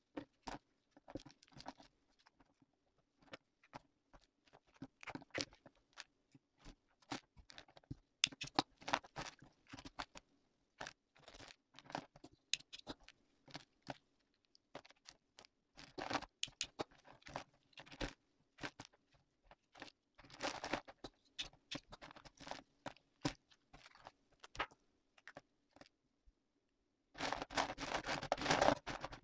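Dried persimmon slices crackling and rustling as fingers sift and lift them in a plastic mesh basket: scattered dry crinkles and clicks, with a dense burst of rustling near the end.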